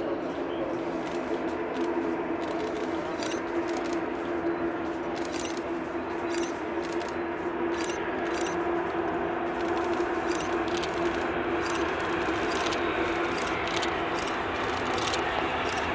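Boeing 747-400 jet engines on final approach, a steady drone with a held hum that grows gradually louder as the aircraft nears touchdown, scattered with light clicks.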